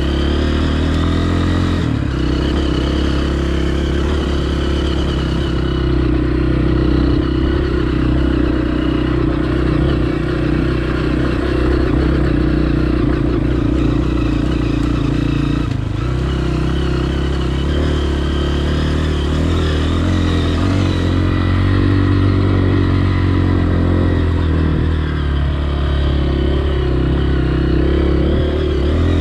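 Honda CRF230F dirt bike's single-cylinder four-stroke engine running steadily, its note shifting about two seconds in and again about halfway through.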